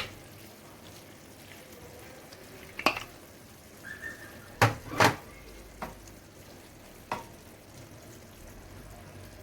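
A utensil knocking and scraping against a paella pan, about five sharp knocks with the loudest pair about five seconds in, as calamari pieces are pushed into the rice. Under them, a faint steady sizzle of the rice cooking in shrimp broth.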